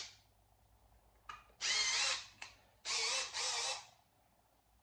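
Power drill run in three short trigger bursts with a couple of brief blips, drilling through a school bus's thin sheet-steel roof, about 16 gauge. The motor's pitch wavers within each run.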